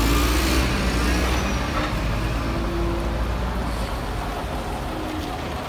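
Scania OmniLink city bus passing close by, its engine giving a deep rumble that is loudest at first and slowly fades as the bus moves on.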